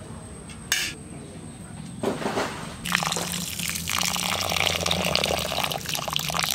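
Water poured in a thin stream onto raw rice in a terracotta bowl, splashing and trickling; the pour starts about two to three seconds in and runs on steadily. A single sharp click comes a little under a second in.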